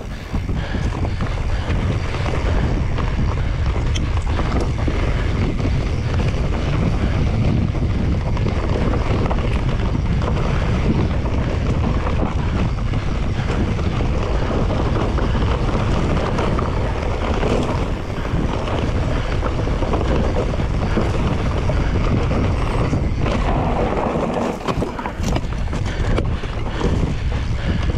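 Wind buffeting the microphone: a loud, steady rushing that is heaviest in the low end, with a brief dip about 24 seconds in.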